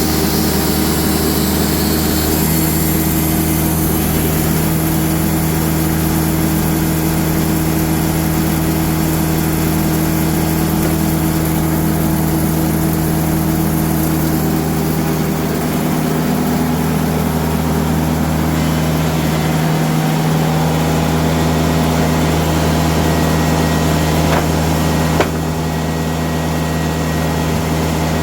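Diesel engine of a TimberKing band sawmill running steadily, with one short sharp click near the end.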